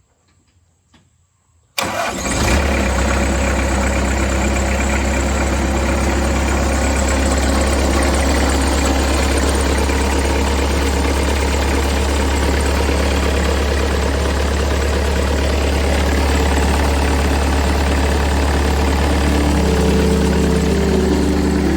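Bobcat 763 skid steer's diesel engine starting about two seconds in, catching at once and then running steadily, freshly primed after a fuel filter change.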